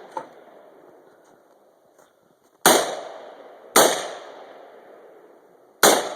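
Three AR-15 rifle shots, the first about three seconds in, the next a second later and the last two seconds after that, each with a long echoing tail.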